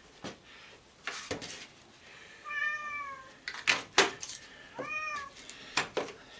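Sharp metal clinks and knocks of hand tools working on an old sander, with two short pitched squeals in the middle, the first longer and falling in pitch.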